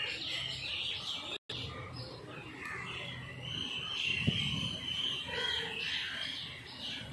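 Several birds chirping and twittering in short, overlapping calls. A single sharp click sounds about four seconds in, and the sound drops out for a moment about a second and a half in.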